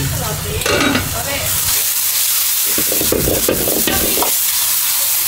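Stir-frying in a wok: food sizzling hard in hot oil while the cook tosses it with a metal ladle. The sizzle swells about a second and a half in, with a few knocks of the ladle against the wok around the middle.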